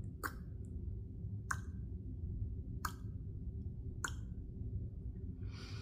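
Tongue clicks: the tongue is suctioned against the roof of the mouth and snapped down, four slow, evenly spaced clicks a little over a second apart. This is a tongue-posture exercise that trains the tongue to rest up on the palate.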